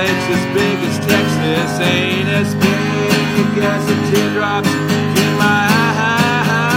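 Acoustic guitar strummed in a steady rhythm, with a man's singing voice coming in near the end.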